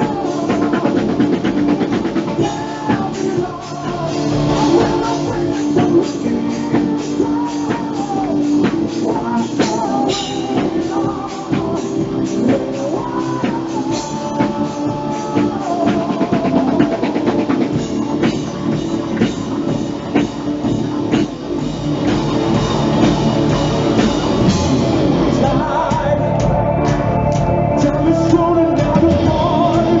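Live rock band performing: a male lead singer's voice over electric guitar, bass and a drum kit.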